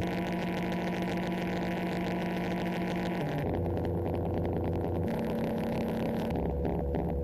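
Nunomo Qun mk2 synthesizer playing a noisy electronic drone: held low tones that step to a new pitch every second or two, under a band of hiss that cuts in and out as the parameters are changed.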